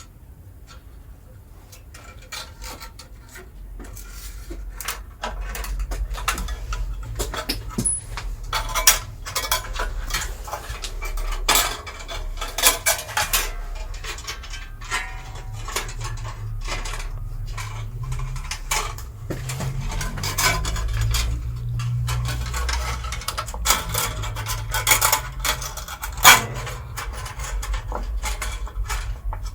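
Metal bandsaw blade being fitted into an Axminster Craft AC1950B bandsaw: repeated light metallic clinks and rattles as the blade is handled and worked onto the wheels, over a low rumble.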